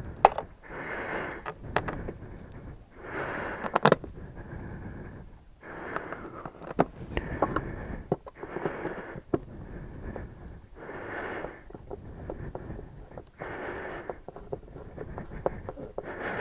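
A person breathing heavily close to the microphone, with a breath every two to three seconds, and scattered sharp clicks and knocks of parts being handled in between.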